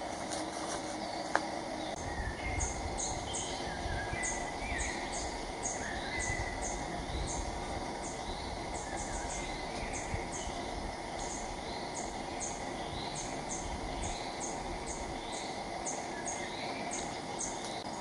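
Woodland ambience: small birds calling, with quick series of short, very high chirps and a rising call repeated about once a second, over a steady background hiss.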